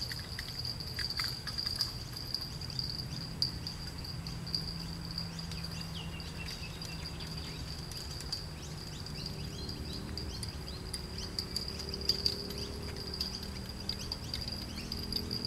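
A steady high insect trill runs on without a break over a low outdoor rumble, with a few small ticks.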